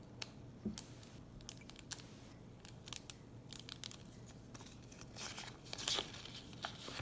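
Scattered light clicks, crinkles and brief tearing of plastic and paper toy packaging being handled and opened.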